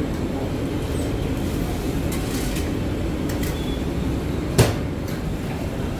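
Steady low mechanical rumble of bakery machinery, with one sharp knock about four and a half seconds in.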